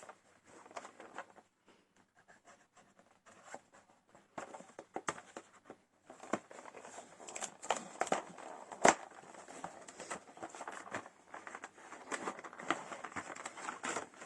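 Small cardboard toy box being opened and its packaging handled: scratching and crinkling with scattered clicks and taps, sparse at first and busier from about six seconds in, with one sharp tap near the middle.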